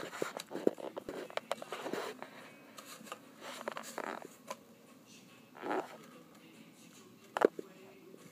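A puppy scampering in circles on carpet: scattered light scuffs, scrabbles and rustles of paws, with one sharper click about seven seconds in.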